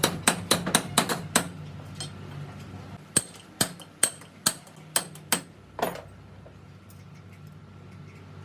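Hammer striking metal: a fast run of blows, about five a second, that stops about a second and a half in, then seven slower, ringing blows about two a second from about three seconds in.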